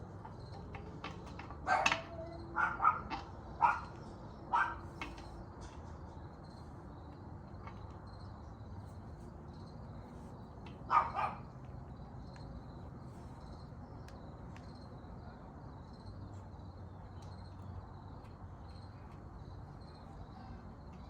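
A dog barking: a run of about five barks a few seconds in, then two more about eleven seconds in.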